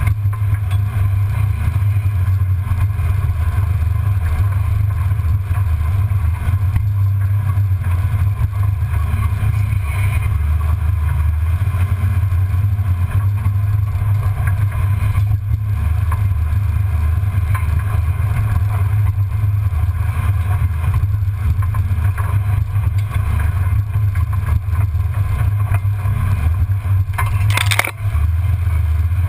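Low, steady rumble of a 1994 Ford Bronco driving slowly off-road, heard from a camera under the chassis. A brief sharp knock comes near the end.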